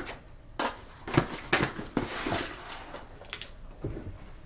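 Packaging of a Seagate Barracuda 8 TB hard drive being opened by hand: a run of sharp knocks and clicks with a rustle in the middle.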